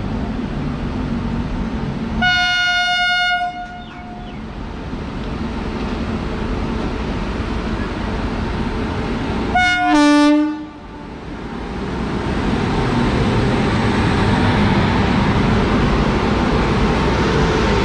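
Indian Railways electric locomotive sounding its horn twice, a blast of over a second and then a shorter one about seven seconds later, as it approaches on the next track. It is followed by the rising rumble of the locomotive and its coaches running past close by.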